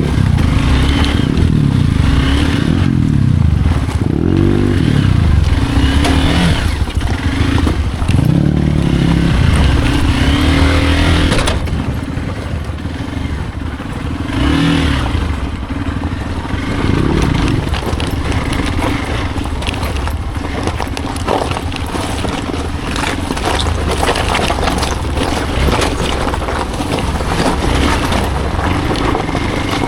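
Hero Xpulse's single-cylinder engine being ridden off-road, revving up and down repeatedly for the first dozen seconds, then running lower and steadier. Scraping and clattering are mixed in throughout.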